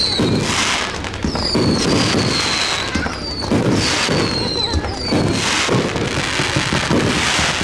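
Fireworks display: a run of aerial shells bursting with booms about every one to two seconds, with crackling between the bursts. Several high whistling tones fall slightly in pitch.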